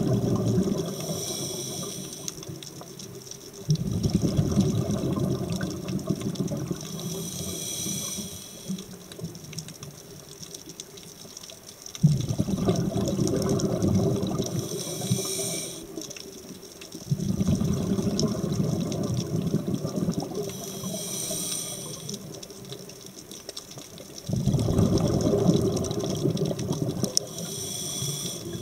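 Scuba diver breathing through a regulator underwater: four long bursts of exhaled bubbles, each with a short high hiss from the regulator, in a slow cycle of about one breath every six to seven seconds.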